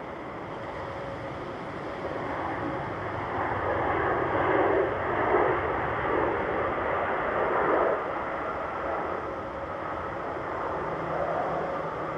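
Jet airliner engines passing nearby, their rushing noise swelling to a peak in the middle of the clip and then easing off.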